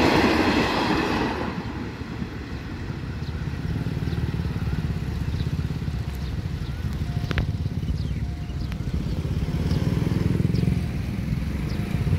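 Passenger train coaches rolling past over a level crossing, fading out about a second and a half in, followed by the low rumble of road vehicle engines, a pickup truck and motorcycles, idling and moving off across the tracks. A faint short tone repeats from about halfway through.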